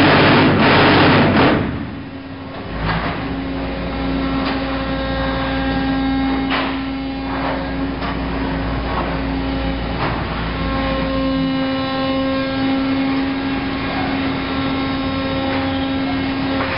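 FRIMA HP 1400 concrete block machine at work: a loud, dense rattling for the first couple of seconds that cuts off suddenly, then a steady machine hum with a low drone and a few sharp clanks as the board of freshly moulded insulated blocks is carried out.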